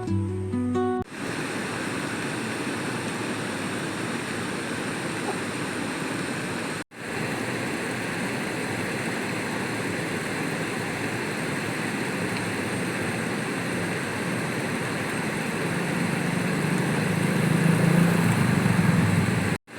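Acoustic guitar music stops about a second in and gives way to a steady rushing outdoor noise. The noise cuts out sharply twice. A low hum swells over it near the end.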